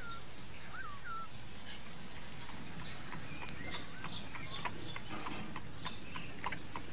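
A cat shut in a wooden puzzle box: a few short, high calls in the first second, then a run of light clicks and taps as it works at the box's latch.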